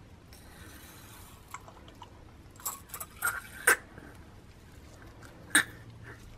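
Small plastic bottles handled with gloved hands: soft handling noise with a few sharp plastic clicks and taps as one reagent bottle is tipped and squeezed into another, the loudest clicks a little past the middle and another near the end.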